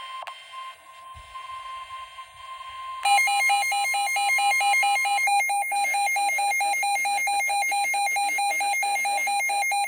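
Midland WR120 NOAA Weather Radio sounding a warning alert: first a steady single-pitched alarm tone. About three seconds in, a much louder, rapidly pulsing electronic alarm beep takes over, and a synthesized voice starts reading the warning faintly underneath it.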